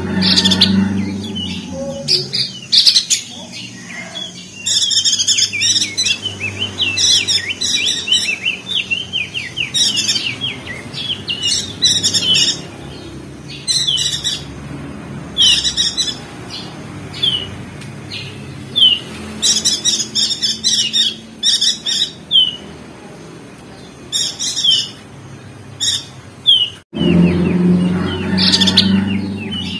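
Perenjak daun (opior jambul) songbird chattering in bursts of rapid, high twittering chirps, with single short falling notes in between. A steady low background hum runs underneath, and the audio drops out for an instant near the end.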